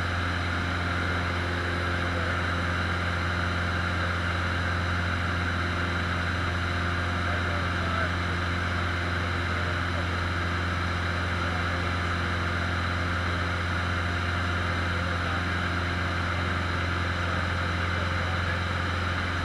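Cessna 150's four-cylinder Continental O-200 engine and propeller droning steadily in flight, heard from inside the cabin.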